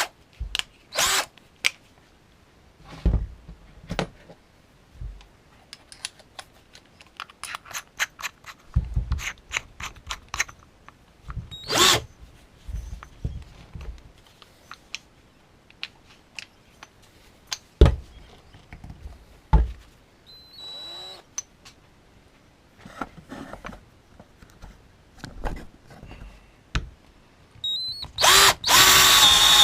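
Clicks and knocks of a Parkside 12 V cordless drill and its parts being handled, with a short whir about two-thirds in. Near the end the drill's motor starts and runs steadily.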